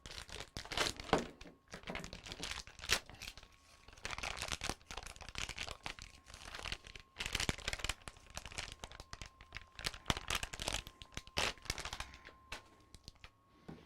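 Irregular crinkling and rustling with small clicks as plastic and computer hardware are handled and worked on inside a PC case. A faint steady tone sounds underneath.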